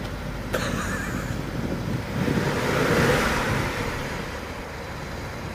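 BMW N63 twin-turbo V8 starting up. A click comes about half a second in, then the engine sound swells, peaks and settles back as it catches. It is running without the cylinder 7 misfire after its intake valves were carbon-cleaned.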